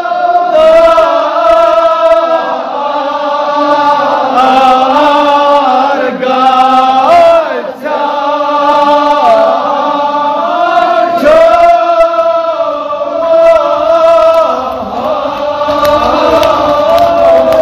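A group of men chanting a Kashmiri marsiya, a Shia elegy, together in long, drawn-out notes that slide up and down in pitch, with a short break for breath just before the middle.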